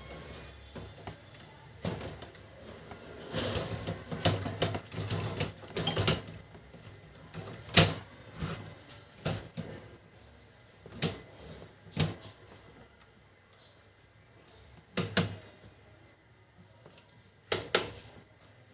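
Scattered clicks and knocks of plastic and metal parts being handled as the fuser unit of a Canon LBP2900 laser printer is refitted, with a busy patch of handling about four to six seconds in and the loudest sharp knock about eight seconds in.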